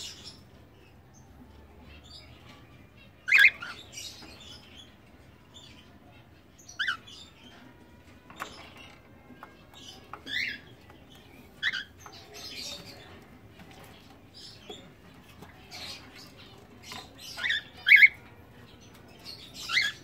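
Cockatiels giving short, sharp chirps every few seconds, with a pair close together near the end.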